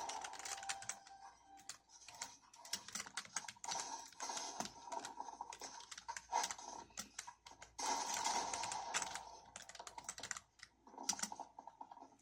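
Typing on a Geodamer 65% mechanical keyboard: quick key clacks in irregular bursts with short pauses.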